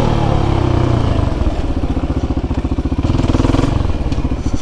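Motorcycle engine running steadily at low revs as the bike is ridden, its firing pulses plain. It eases off briefly near the end, then picks up again.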